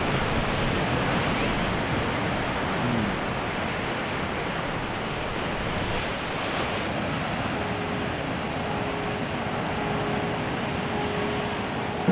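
Sea surf washing onto a rocky shore: a steady, even rush of breaking waves.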